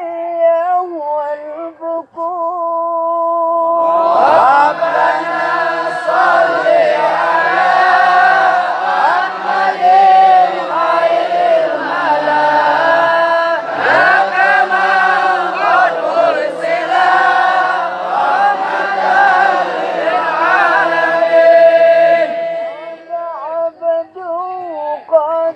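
A solo voice chanting a devotional Arabic sholawat with long, ornamented held notes. About four seconds in, a group of voices joins in and sings together in a fuller chorus. Near the end it drops back to the solo voice alone.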